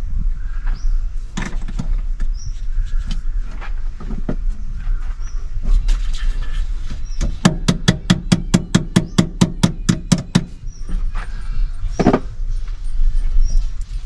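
Ratchet wrench clicking rapidly and evenly, about six clicks a second for some three seconds, as a battery terminal is tightened, amid scattered knocks of tools on metal.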